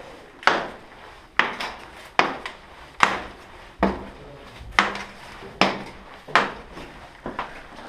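Footsteps at an even walking pace, about ten steps, each a sharp crunch or scuff that dies away quickly.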